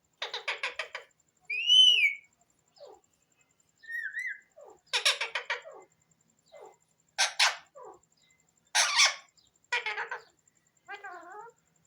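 Pet parrot calling: bursts of rapid, harsh chattering squawks, with a loud rising-and-falling whistle about two seconds in and a wavering, warbling call near the end.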